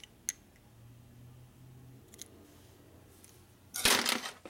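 Metal roller lifters and small engine parts handled on a steel workbench: a couple of small clicks near the start, then a short, loud rattle of parts nearly four seconds in.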